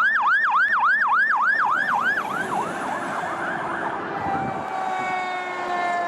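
Emergency-vehicle siren in a fast yelp, sweeping up and down about four to five times a second. It fades out after about two seconds and gives way to a long, slowly falling tone, as the siren winds down.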